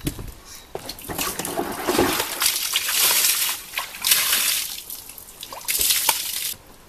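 Water poured from a plastic bucket over a newborn calf, splashing onto its coat and the ground in three pours; the last one stops suddenly near the end.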